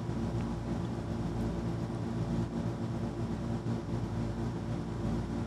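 Steady low mechanical hum of a SenoRx EnCor vacuum-assisted biopsy system running its vacuum and probe drive as it takes a breast tissue core.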